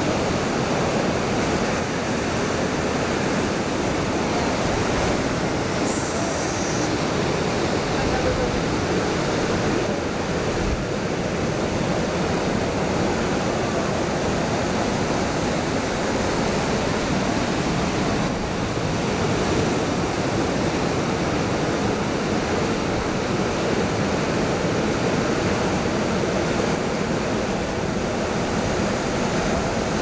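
Ocean surf washing steadily, an even rush with no breaks.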